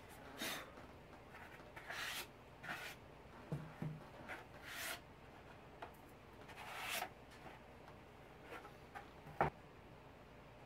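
Thin 3D-printed plastic lithophane lampshade halves being handled and slid over a cloth-covered table: several brief rustling, scraping swishes, with one sharp click near the end.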